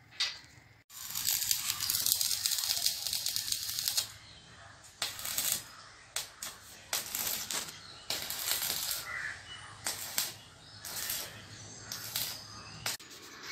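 Arc welding on a metal tube frame: a continuous crackling, sizzling arc for about three seconds, then a series of short crackling bursts as the arc is struck and broken for tack welds.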